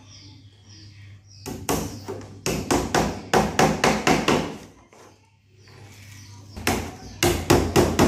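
Hammer striking the wooden frame of a quail cage in two quick runs of sharp taps, several a second, with a pause of about two seconds between them.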